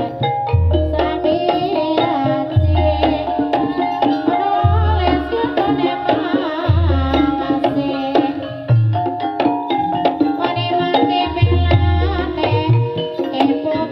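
Live Javanese ebeg dance music: hand drums and pitched gamelan-style instruments with a singing voice, over a deep beat about every two seconds.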